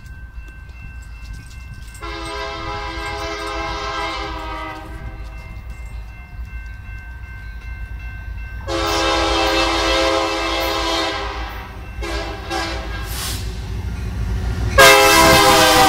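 Air horn of an approaching BNSF diesel freight locomotive sounding a chord in long blasts, about 2 s in, about 9 s in, and again near the end, each louder than the last, the final blast the loudest. A low engine rumble grows under it as the train comes closer.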